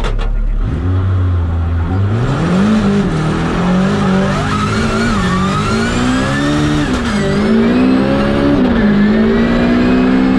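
Nissan Silvia S15 drift car's engine, heard from inside the cabin: it runs low and steady for about two seconds, then the revs climb as the car accelerates away. After that they rise and fall several times as the throttle is worked.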